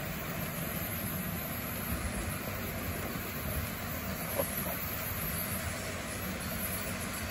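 Motorized HO scale model railroad turntable turning, its drive running steadily, with one light click about four and a half seconds in.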